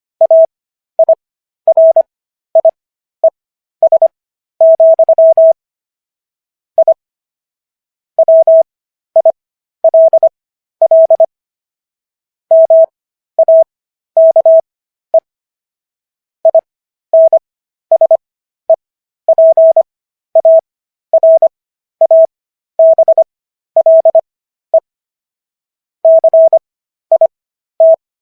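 Morse code practice tone: a single steady beep keyed on and off in short dits and longer dahs. The characters are sent at 25 words per minute, with Farnsworth spacing stretching the gaps between characters and words for an overall 15 words per minute.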